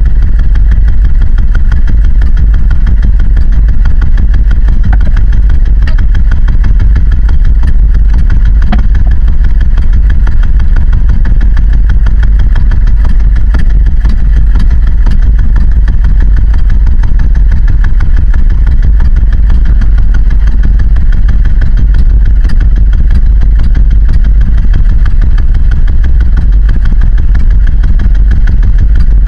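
Small boat's engine running steadily at an even speed, a loud continuous rumble with no change in pitch.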